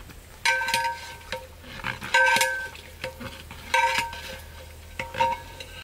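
Long metal ladle stirring chickpeas in a large metal cooking pot, knocking against the pot four times about a second and a half apart, each knock a ringing clang.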